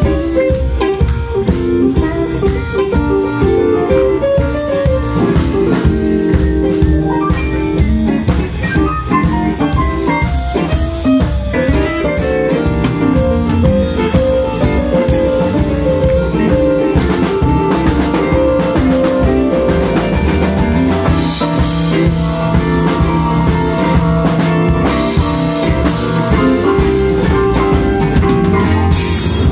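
Live blues band playing an instrumental passage with no singing: electric guitars, keyboard and a drum kit keeping a steady beat.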